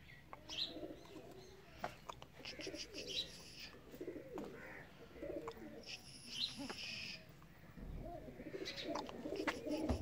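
Fancy pigeons cooing, a warbling low murmur of several birds, with a few sharp clicks and short bursts of higher chirping now and then.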